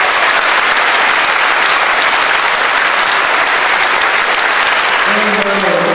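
Audience applause: many people clapping steadily throughout. A voice begins speaking over the clapping near the end.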